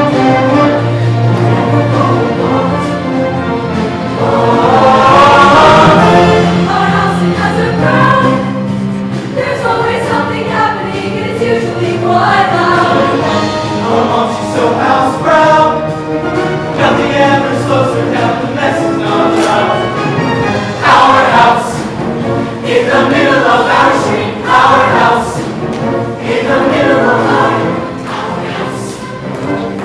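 A large mixed show choir singing loudly with instrumental accompaniment, the voices moving over sustained low bass notes.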